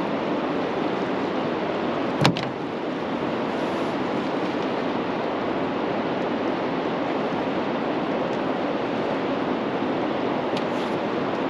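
Steady rushing noise, with one sharp click about two seconds in.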